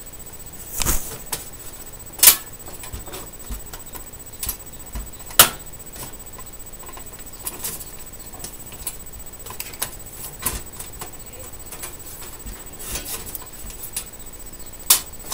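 Scattered clicks and sharp metallic knocks from a screwdriver and hands working a motherboard into place inside a steel desktop computer case. The strongest knocks come about two seconds in, about five seconds in and near the end.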